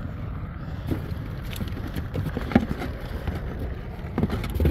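Cardboard boxes and boxed goods being shifted and knocked about in a car's cargo area: a scatter of light knocks and rustles, the sharpest about two and a half seconds in and another cluster near the end. Underneath is a steady low rumble of passing traffic.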